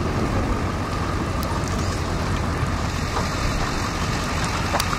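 Steady rushing wind buffeting the microphone in the storm's gusts, with a couple of faint ticks.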